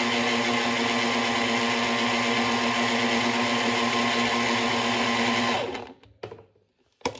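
Small personal blender running steadily at one pitch, blending a spinach and watermelon smoothie. The motor cuts out about five and a half seconds in, and a light click and a sharp knock follow near the end.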